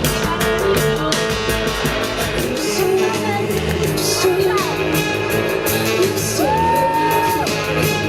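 Pop-rock song with a steady drum beat and a singing voice; near the end the voice holds one long high note.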